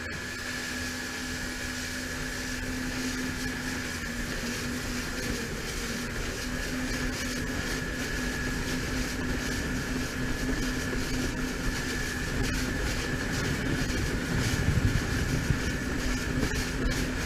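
Jet ski engine running at a steady, unchanging pitch at cruising speed, over a constant rush of water and wind noise. A few louder thumps come near the end.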